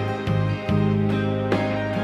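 Instrumental intro of a soft Filipino ballad, no vocals yet: held bass notes under melody notes that start afresh every half second or so.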